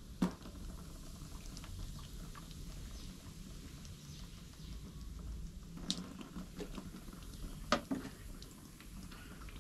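Wet dripping and squelching as white vinegar is worked through soaked dreadlocks by a gloved hand and runs into a plastic basin, with scattered small clicks and a few sharper ones, the loudest about eight seconds in.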